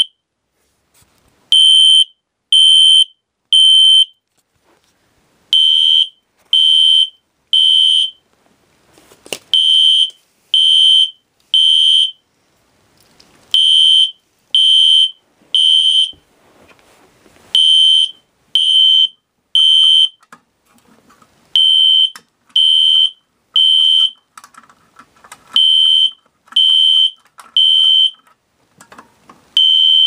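System Sensor SpectrAlert H12/24 first-generation fire alarm horn sounding in a temporal-three pattern: three loud, high blasts about a second apart, a short pause, then the same again, over and over.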